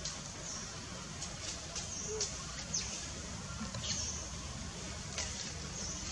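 Forest ambience: a steady low rumble with short, high-pitched chirps and squeaks scattered through it, roughly one every second or so.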